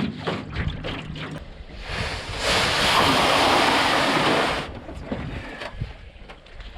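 Wind and water noise on open water, with a loud, even rush of noise lasting about two seconds that starts and stops abruptly near the middle.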